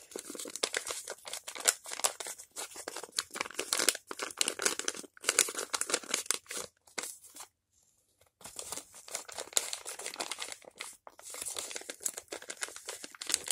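Paper and tape crinkling and rustling as hands fold and press a taped paper fry holder into shape, in irregular crackly bursts with a pause of about a second just past the middle.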